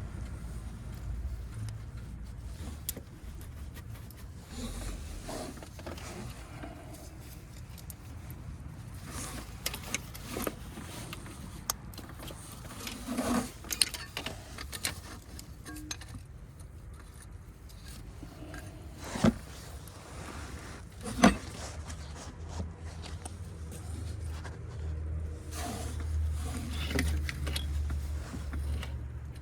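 Scattered small metallic clinks and knocks of hand work on an engine, with two sharper knocks about two-thirds of the way through, over a low steady rumble.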